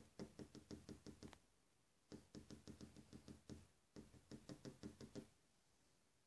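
Cat chattering: rapid clicking chirps with a thin voiced tone, about nine a second, in three bursts of a second or so each.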